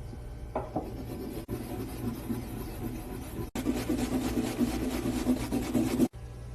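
Fresh wasabi root being grated, a continuous rasping rub against the grater, broken off abruptly three times and louder in the last few seconds.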